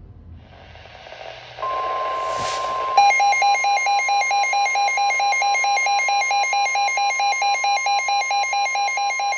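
Emergency Alert System alert tones. A hiss rises first, then a steady high tone starts about a second and a half in. A second tone pulsing about four times a second joins it about three seconds in, signalling an urgent weather warning.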